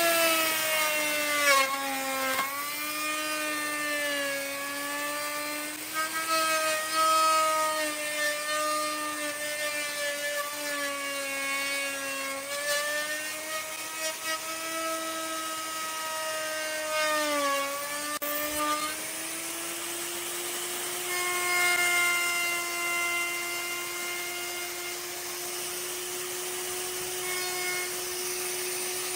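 Electric power tool motor running with a steady whine. Its pitch sags and wavers as it is loaded against wood, dipping sharply a couple of seconds in and again a little past halfway. For the last third it holds steady at a slightly higher pitch, running free.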